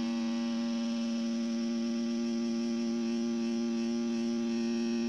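Two steady pure tones, about 232 Hz and 340 Hz, sounding together from an amplified speaker whose cone is covered by a stretched balloon membrane carrying a small mirror. The tones are test notes chosen to set the mirror vibrating so that a reflected laser beam draws a spinning pattern.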